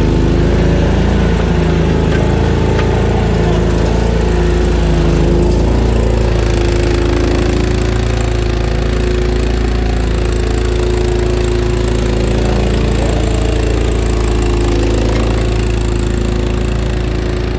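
Small engine of a mini skid steer running steadily at working speed, its pitch wavering a little as the load changes.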